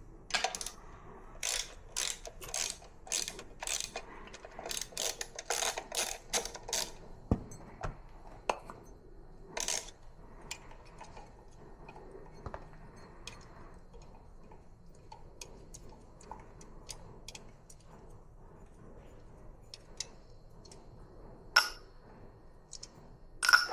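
Ratchet wrench clicking in quick strokes while the carburetor hold-down nuts are undone, for about seven seconds, then only scattered clicks and taps.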